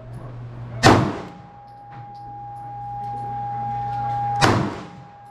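Two 9mm pistol shots about three and a half seconds apart, each a sharp crack with a short echo. Between them a steady high tone holds and grows louder, over a low steady hum.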